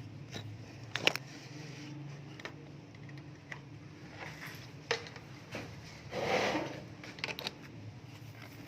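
A low steady hum with scattered sharp clicks and taps, and a brief scraping rustle about six seconds in.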